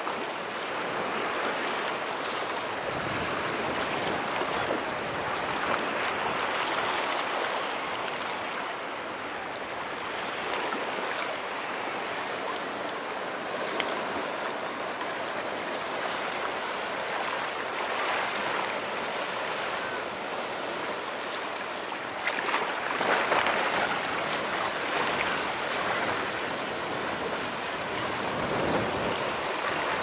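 Ocean surf: a steady rush of small waves washing against the shore and a concrete breakwater, swelling louder now and then, most strongly about three-quarters of the way through.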